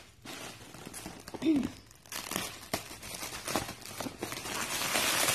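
Clear plastic wrapping crinkling and crackling in irregular bursts as hands handle it and pull it open. A brief vocal sound about one and a half seconds in.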